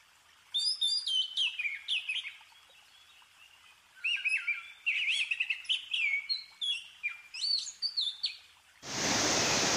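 A songbird singing in two runs of quick, sliding whistled notes. Near the end a steady, louder rushing noise cuts in suddenly.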